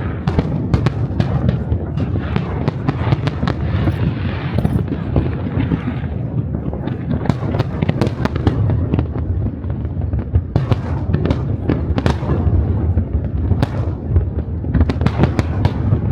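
A fireworks display: a rapid, dense barrage of bangs and crackling shell bursts over a continuous low rumble of booms.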